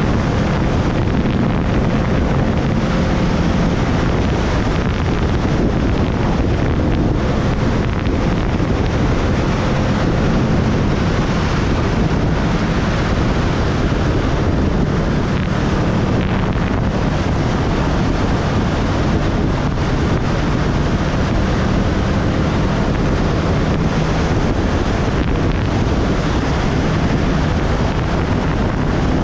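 Wind rushing over the microphone of a moving motorcycle, steady and loud. The engine's drone sits faintly beneath it, rising and falling a little in pitch.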